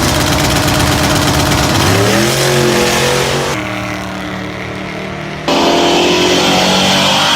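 A car engine running and revving, its pitch rising about two seconds in, with sudden cuts between clips.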